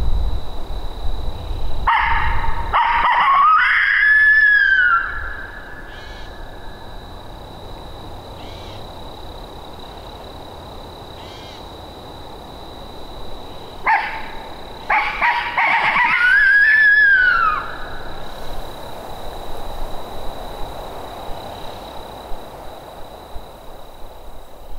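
Coyote howl locator call, given twice: each time a few short barks go into a long howl that rises and then falls. It is sounded to make a gobbler shock-gobble.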